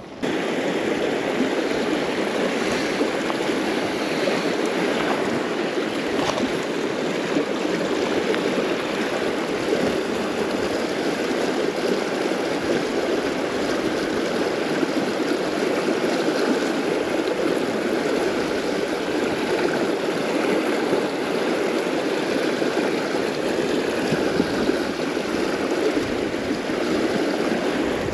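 River water rushing steadily, a constant even flow noise.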